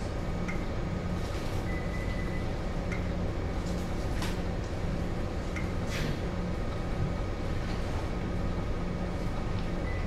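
Steady low hum of a ship's machinery under way, with a few sharp clicks and some short faint high beeps.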